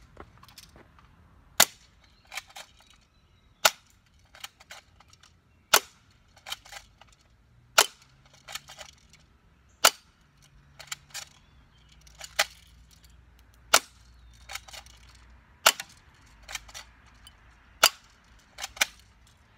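Spring-powered, hand-cocked airsoft Uzi firing single shots: about ten sharp snaps, roughly one every two seconds, with quieter clicks and taps between the shots.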